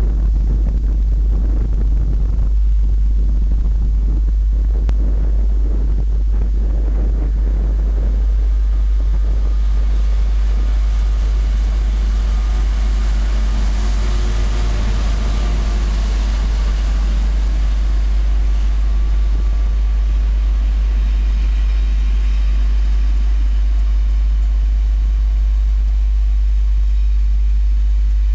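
A GBRf Class 66 diesel locomotive's two-stroke V12 engine draws near and passes, loudest about halfway through, followed by its coal wagons rolling past on the rails. A constant deep rumble underlies everything.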